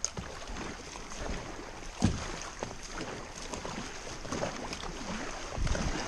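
Kayak running a shallow riffle: steady rush of moving river water around the hull, with paddle strokes splashing and a few low thumps, the sharpest about two seconds in and more near the end.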